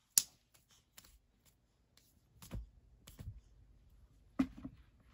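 A few scattered sharp clicks and light taps, the loudest just after the start, from handling in a small room.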